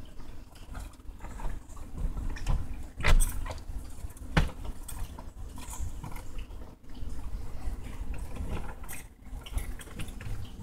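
Scattered metallic clicks and knocks of door lock hardware as the door and its jamb security device are locked, with a steady low rumble underneath; the two sharpest clicks come about three and four and a half seconds in.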